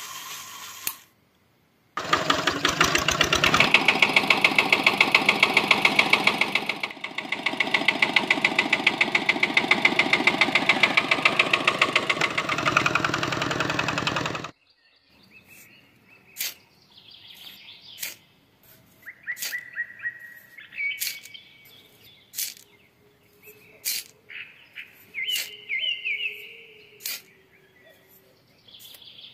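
Small electric motor of a handmade toy machine running with a fast buzzing rattle for about twelve seconds, then cutting off. After that, birds chirp, with scattered sharp clicks.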